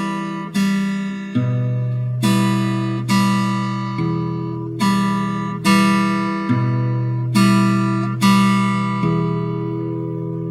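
Acoustic guitar chords, each struck once and left to ring, a little more than one a second, about a dozen in all. The last chord rings on and fades near the end.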